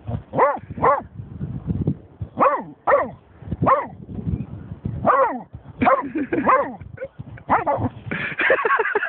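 German shorthaired pointer barking repeatedly: about ten barks, some in pairs, then a quicker run near the end. The barking is aimed at a dead seagull the dog is wary of.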